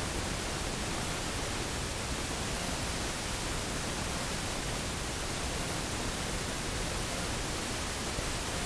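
Steady, even hiss of static noise with no other sound and no change in level.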